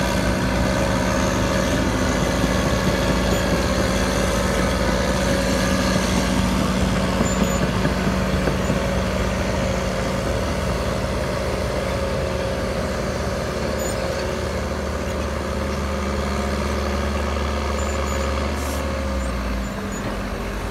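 Heavy diesel machinery engine running steadily, a constant low drone as silage is spread and compacted. It eases slightly near the end.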